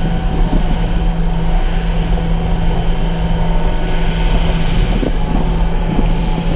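Caterpillar 289D compact track loader's diesel engine running steadily as the machine drives, a constant hum with no change in pitch, with some wind on the microphone.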